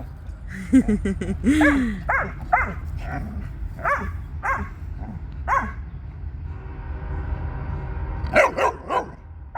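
Dogs barking in play: a string of short barks about every half second, a pause of about two seconds, then a quick burst of barks near the end.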